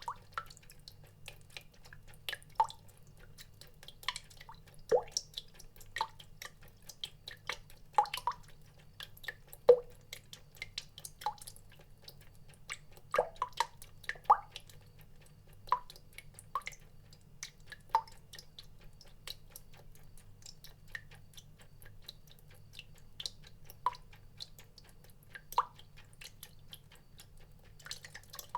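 Water drops falling one by one, each a short pitched plink, at an irregular pace of somewhat less than one a second, over a faint steady low hum.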